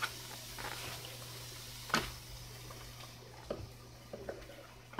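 Light kitchen handling sounds over a faint steady hiss and hum: one sharp knock about two seconds in, then a few light taps near the end as a knife cuts raw steak on a plastic cutting board.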